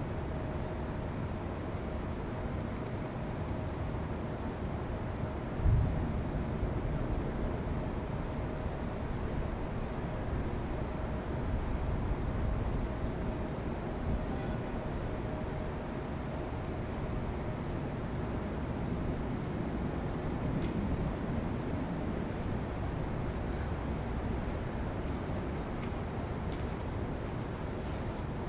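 Crickets trilling steadily in one high, unbroken tone over low background noise, with a single low thump about six seconds in.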